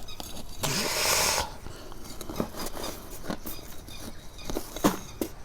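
Hands working in a garden pot, rustling and scraping soil and plant material, with a louder rustle about a second in and scattered small knocks and scratches.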